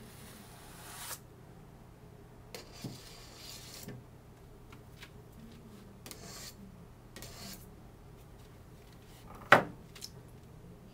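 Icing scraper drawn across royal icing on a plastic stencil, then wiped against the rim of a stainless steel mixing bowl, in several short rasping strokes. A sharp knock near the end as the scraper is set down on the table.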